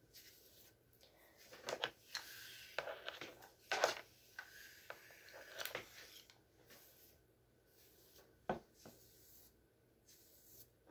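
Hair rubbing and rustling as it is drawn through a flat iron, with scattered clicks from the iron's plates closing and being handled; busiest in the first half, with one sharper click later on.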